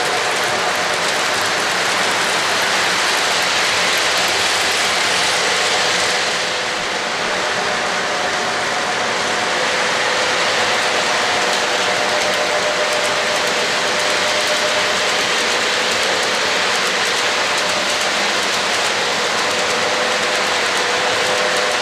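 Freight train cars rolling past on the rails: a steady rolling rush with a faint hum running through it.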